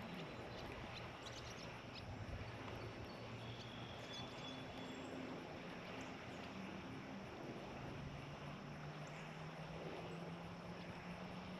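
Faint outdoor background noise with a low steady hum that rises slightly in pitch about two-thirds of the way through.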